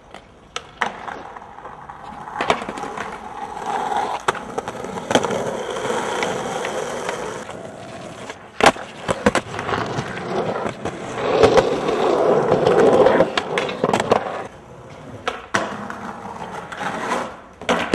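Skateboard wheels rolling, swelling and fading, cut by sharp clacks of the board hitting the ground. The loudest clack comes about eight and a half seconds in.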